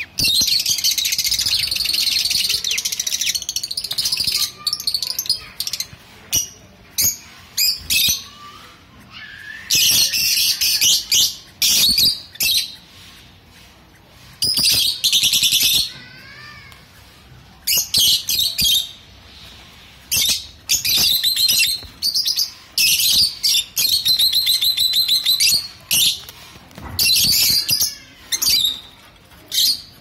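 A flock of Fischer's and lutino lovebirds chattering with shrill, rapid chirps and squawks. The calls come in bursts of one to four seconds, with short quieter gaps between them.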